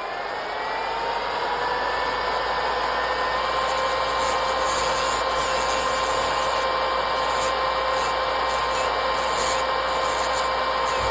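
Electric nail drill (e-file) grinding down old gel nails: a high motor whine that rises to full speed in the first second or two, then holds steady over a rough filing hiss.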